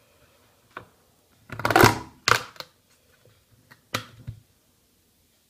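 Hands handling an opened plastic pre-workout powder tub: a few sharp clicks and knocks, with a short rustling noise about two seconds in as the loudest sound.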